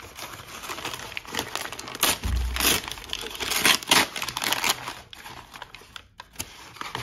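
Paper mailer bag being torn open and crumpled by hand: crackling and tearing of stiff kraft paper, loudest in the middle and dying down about five seconds in, with a low handling bump about two seconds in.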